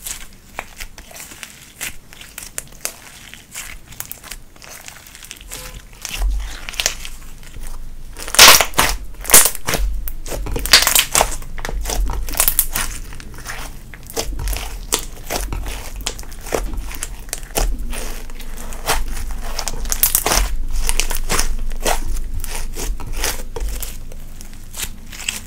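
Hands squishing, folding and stretching a glittery slime mixed with eyeshadow: a run of sticky crackles and pops. They are sparse at first and become denser and louder from about eight seconds in.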